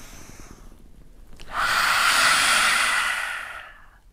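A woman doing lion's breath: the end of an inhale through the nose, a short pause, then a loud, forceful open-mouthed exhale with the tongue out, a breathy "haaa" of about two seconds that fades out.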